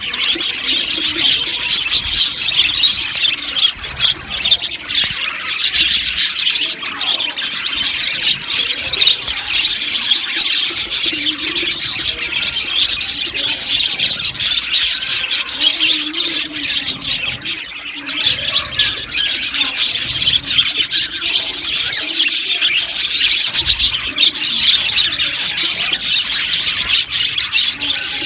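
A flock of budgerigars chirping and chattering together, a dense, continuous mass of short high calls and warbles.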